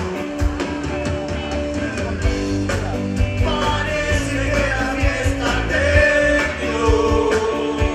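Rock band playing with a lead singer and backing voices: electric guitars over a drum kit keeping a steady beat.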